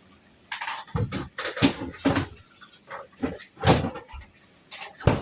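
Kitchen cupboard doors and items inside being knocked and moved during a search for something, about five separate knocks and clatters.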